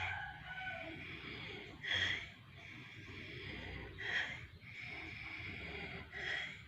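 A woman coughing: four single, harsh coughs about two seconds apart. It is a chesty cough, taken for a catching lung illness.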